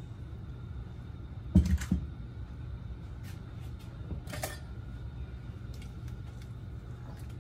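A stainless steel mixing bowl clanks loudly about a second and a half in as shredded chicken is emptied from it into a pot of broth, followed by a smaller metallic clink in the middle and a few light ticks as a spatula starts stirring the pot, over a steady low hum.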